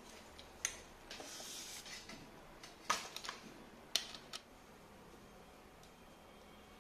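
Plastic and metal fittings of a lightweight tripod being handled as its head and centre column are adjusted and locked: a click, a short rubbing sound, then a few sharp clicks, the last about halfway through.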